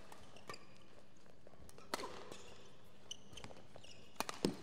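Badminton doubles rally: sharp racket strikes on the shuttlecock, a loud one just before two seconds in and a quick cluster of three near the end, with shoes squeaking briefly on the court surface.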